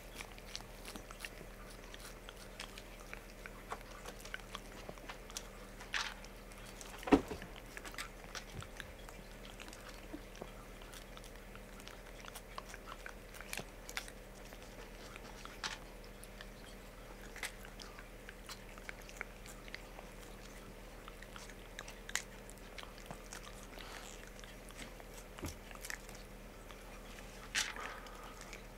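Red Abyssinian cat licking paste treat from a squeezed tube: many small, irregular wet licking and mouth clicks, with one louder knock about seven seconds in.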